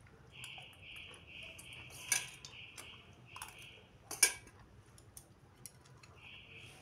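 A metal spoon clinks and scrapes against a stainless steel bowl of rice, with two sharper clinks about two and four seconds in. Behind it, a high pulsing chirp repeats about twice a second through the first half and again near the end.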